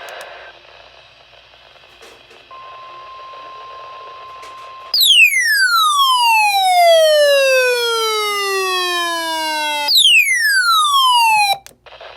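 Electronic alert tones. A steady single tone plays for a couple of seconds, then a loud, buzzy tone glides steadily downward in pitch over about five seconds. A second downward glide starts and cuts off abruptly after a second and a half.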